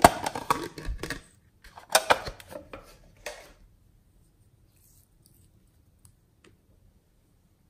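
Quick clicks and clattering of small hard plastic objects being handled, in two bursts over the first three and a half seconds. Then near silence with a few faint ticks.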